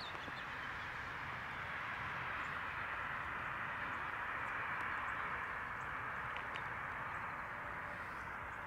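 Steady outdoor ambience over open fields: an even, unbroken hiss-like background in the middle range, with a few faint ticks.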